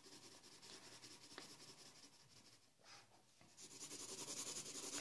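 Faint scratching of a black coloured pencil shading on sketchbook paper. It drops away briefly a little past halfway, then picks up again and grows louder toward the end.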